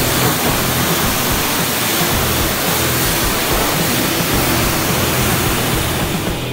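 High-pressure washer lance spraying water onto the side of a tipper trailer: a loud, steady hiss of spray, with background music underneath.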